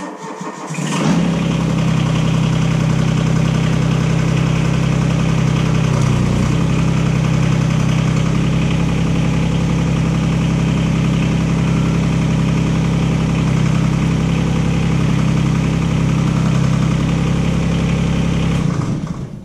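The Komatsu PC15 mini excavator's diesel engine starting, running steadily for about eighteen seconds, then shutting off just before the end. It runs the track's hydraulic drive motor with the track lifted clear, to flush possible contaminants out of the motor and its new lines.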